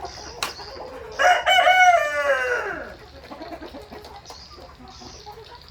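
A Brahma rooster crows once, a crow of about a second and a half that drops in pitch at the end, over soft clucking from the flock. A single sharp click comes just before the crow.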